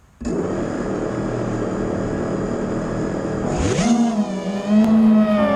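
Brushless motors of a 5-inch FPV quadcopter (Racerstar 2205 2300KV motors with tri-blade props) starting up abruptly and spinning at idle. About three and a half seconds in they rise sharply in pitch as the throttle comes up for takeoff, then hold a higher steady whine that drifts in pitch with the throttle.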